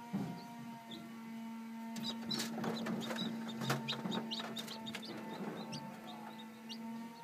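Newly hatching chicks peeping in short high notes, with clicking and rustling as a wet chick pushes free of its cracked eggshell, busiest between about two and five seconds in. A steady low hum runs underneath.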